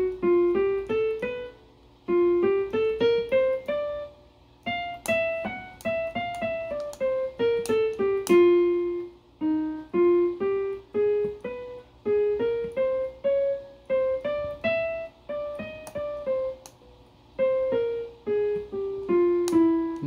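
Casio WK-245 digital keyboard played in a piano voice: a single-note melody that climbs and falls step by step in short phrases, with brief pauses between them.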